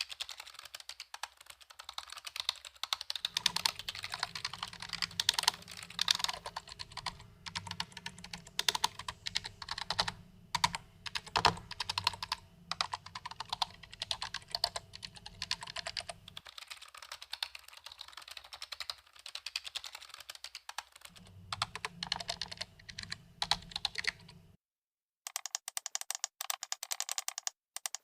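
Typing on a computer keyboard: a rapid, uneven run of keystroke clicks. Near the end the typing breaks off briefly and a thinner, higher-pitched clicking takes over.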